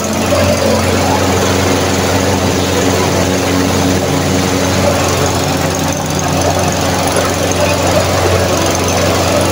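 A walk-behind lawnmower's small petrol engine running steadily at a constant speed. The carbon has been scraped off its piston top and its spark plug cleaned to cure hard starting.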